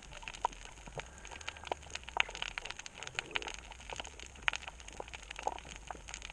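Underwater reef crackle: a dense, irregular patter of sharp clicks over a steady low background, typical of snapping shrimp on a coral reef.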